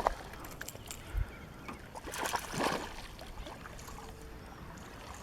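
Small fishing boat on the water: a dull knock against the hull about a second in, then a short burst of splashing and rustling, over low water noise.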